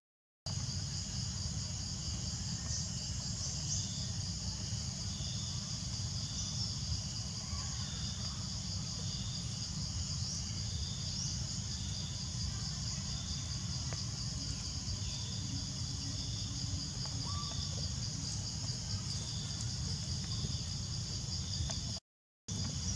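Steady high-pitched chorus of forest insects, with a second insect call pulsing on and off a little lower, over a low rumble. The sound drops out briefly at the start and again near the end.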